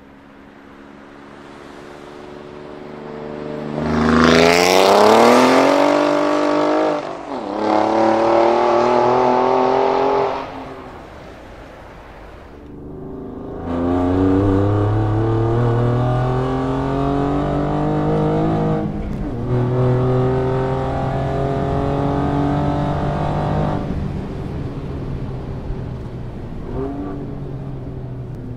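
Alfa Romeo Giulia Quadrifoglio's twin-turbo V6, breathing through catless downpipes and a Capristo cat-back exhaust, accelerating hard past with rising pitch, an upshift about seven seconds in, then fading away. After a cut it is heard from inside the cabin, pulling hard again with an upshift near the middle, then easing off near the end.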